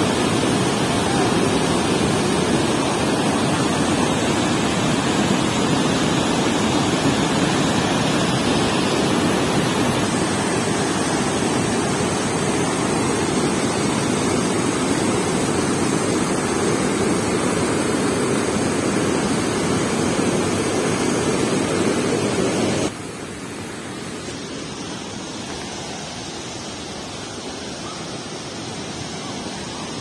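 Mountain stream cascading over boulders: a loud, steady rush of white water. About 23 seconds in it drops abruptly to a quieter rush.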